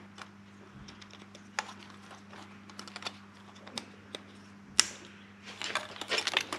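Wiring loom and its plastic injector plug connectors handled over the fuel injectors: scattered sharp plastic clicks and taps, one loud click about five seconds in, then a burst of clicking and rustling near the end.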